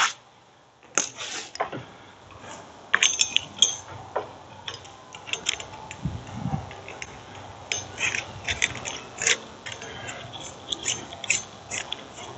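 A propane hose fitting being hand-threaded onto a distribution post: a string of small, irregular clicks and scrapes, with a couple of louder knocks about a second in.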